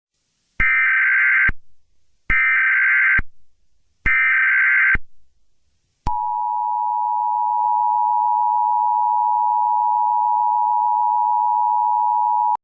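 Emergency Alert System tones. Three short bursts of SAME header data, each under a second long and spaced evenly about a second and a half apart, are followed about six seconds in by the steady two-tone EAS attention signal.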